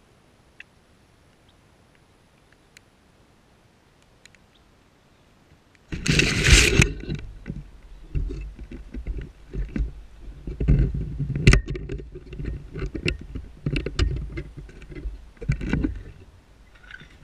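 Near silence with a few faint ticks, then about six seconds in a sudden loud rustle as the camera is picked up out of the grass. It is followed by irregular knocks, rustling and handling noise as it is carried by hand, with footsteps through tall grass.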